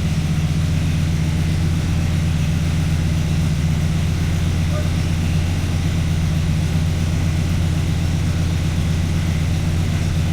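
Car engine idling steadily: a deep, even drone.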